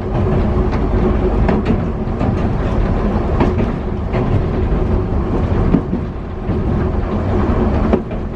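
Hankai 161-class tram car No. 162 running along the line, heard from inside the car: a continuous rumble of steel wheels on rail under a steady hum, with a few scattered clicks from the track.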